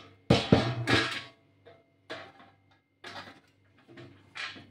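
Metal pot rack parts knocking and clattering as they are handled: a quick run of sharp knocks in the first second, then a few fainter ones spread over the rest.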